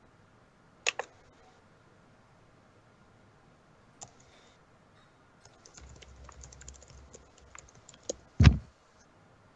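Scattered clicks, then a quick run of small taps like typing on a computer keyboard, and one loud dull thump near the end.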